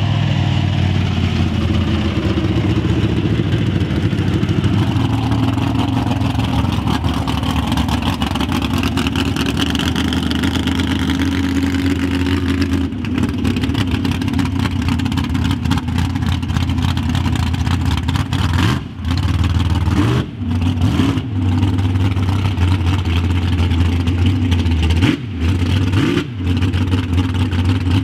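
Mega truck engine running hard, its pitch rising and falling, then holding high with four short drops in level in the second half.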